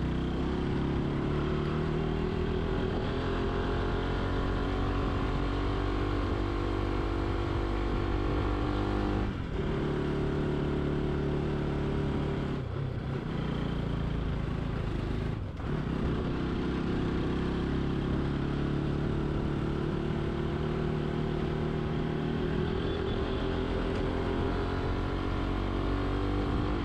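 Motorcycle engine running under way, its pitch climbing slowly as it pulls. The pitch drops sharply about nine seconds in and dips briefly twice more a few seconds later, like throttle lifts for gear changes, then climbs steadily again.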